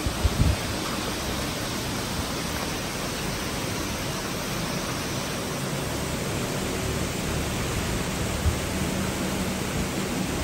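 Heavy thunderstorm downpour: a steady rush of pouring rain and wind. A few low thumps come just after the start and one more about eight and a half seconds in.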